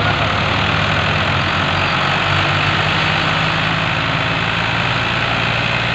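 Al-Ghazi (Fiat) tractor's diesel engine running steadily under load as it tries to pull a trolley loaded with sugarcane out of deep mud.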